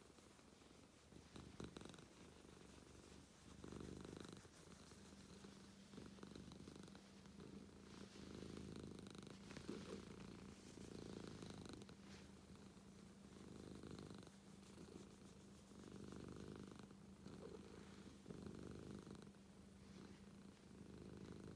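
Domestic cat purring softly and steadily, the purr swelling and easing with each breath every second or two.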